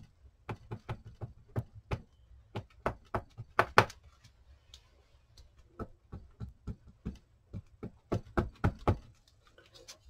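Light, irregular taps and knocks of stamping supplies being handled and set down on a craft mat, with quick runs of taps a few seconds in and near the end.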